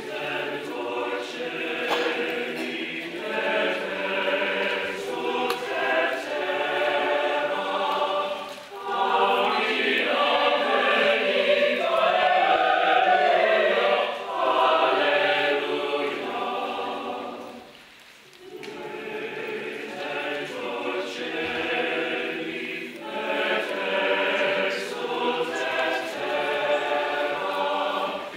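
Choir singing in long phrases, with short breaks between phrases about nine seconds in and again about eighteen seconds in.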